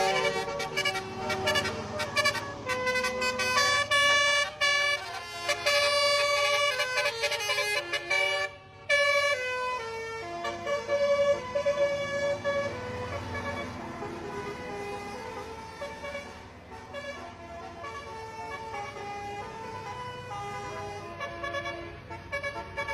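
Bus 'telolet basuri' musical horn playing a melody, stepping from note to note. The notes are louder for the first half, with a short break about nine seconds in, then go on more softly.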